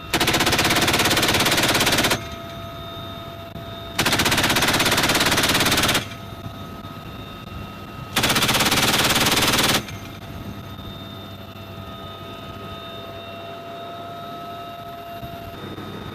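Door-mounted heavy machine gun on a UH-1Y Venom helicopter firing three long bursts of about two seconds each, heard from inside the cabin. Between the bursts the helicopter's steady engine and rotor noise carries on.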